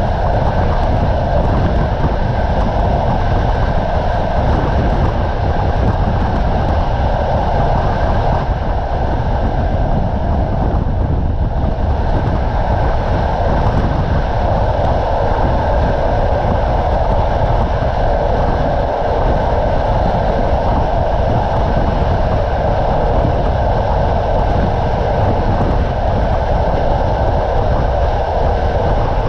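Passenger train coach running at speed, heard from inside at the window: a steady rumble and rush of the wheels on the rails.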